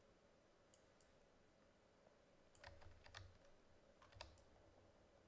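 Near silence: quiet room tone with a handful of faint, short clicks from computer controls as the color wheels are adjusted.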